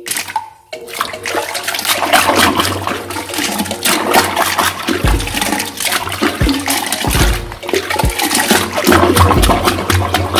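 Toilet flushing: water rushing and splashing in the bowl while a hand pushes Mentos tubes into the drain, with several dull thuds from about halfway in.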